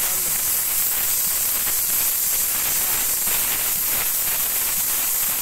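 Belt-driven horizontal band saw cutting lengthwise through a log, its blade in the wood giving a steady, loud high hiss.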